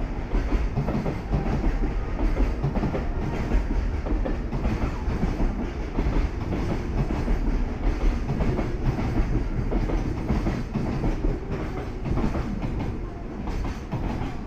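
Freight train of container flatcars rolling steadily past, its wheels clacking over the rail joints under a continuous low rumble.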